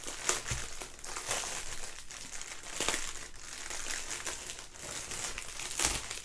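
Plastic bags of diamond-painting drills crinkling and rustling as they are handled and shuffled, in a run of irregular crackles.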